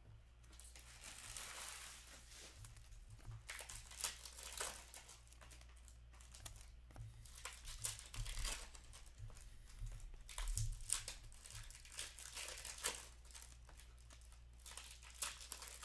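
Trading card pack wrappers rustling and being torn open, with cards being handled and stacked, in an irregular scatter of short crackles.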